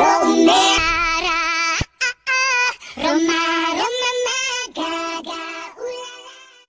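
A song with a high-pitched female singing voice, sung in phrases with a wavering vibrato, broken by two brief drop-outs about two seconds in and fading near the end.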